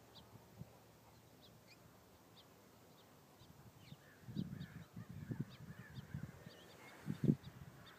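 Small birds chirping outdoors in short, high, scattered notes. From about halfway in come low irregular thumps and rustling, the loudest one near the end.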